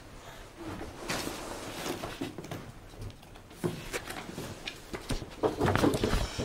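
Scattered rustles and light knocks of papers being handled at a table, busiest near the end.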